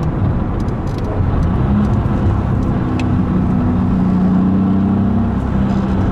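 BMW Z4 Clubsport's engine heard inside the cabin on track. The note sags in the first second as the car slows for a corner after a downshift, then climbs and holds under power, and steps down once about five and a half seconds in.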